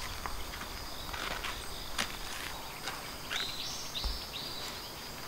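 Slow footsteps of robed Shinto priests scuffing across sandy, gravelly ground, over a faint steady insect trill. A few short high chirps come about three and a half seconds in.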